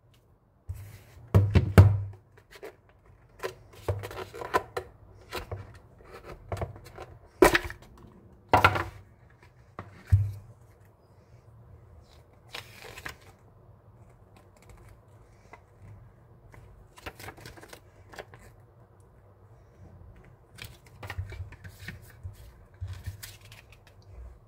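Handling noise from unboxing a power bank: irregular knocks, taps and clicks as the power bank and cardboard box are handled and set down, with paper rustling from the instruction card and leaflet. The knocks are loudest and most frequent in the first ten seconds, then give way to quieter scattered clicks and rustles.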